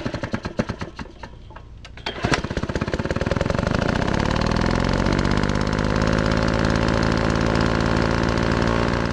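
A small engine fires unevenly for about two seconds, then catches and runs steadily with a rapid, even beat.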